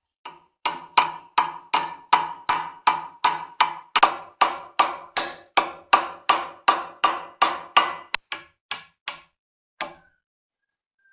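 A hammer striking a steel punch set against the cast-iron body of an old block plane clamped in a vise. It is a steady run of ringing metallic taps, about three a second, which stops near the end after a last lone tap.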